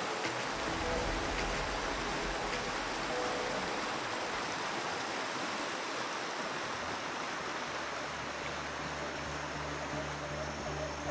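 Steady rush of flowing creek water, with soft background music underneath whose low notes come up in the second half.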